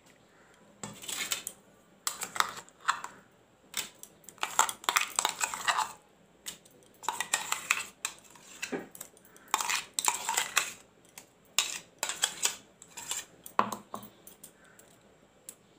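Metal spoon scraping and knocking against the inside of a stainless-steel mixer-grinder jar, scooping ground paste out onto a steel plate: irregular clinks and scrapes of metal on metal.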